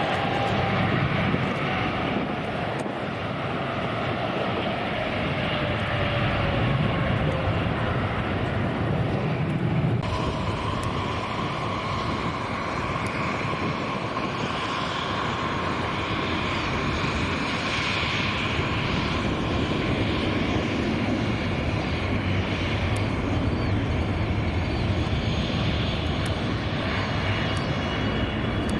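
Airliner engines running: a whine that falls in pitch over the first several seconds over a low rumble, then, after an abrupt change about ten seconds in, a steady whine with rushing noise.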